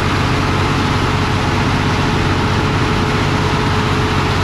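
Shacman dump truck's diesel engine running steadily, with a steady whining tone over its low note.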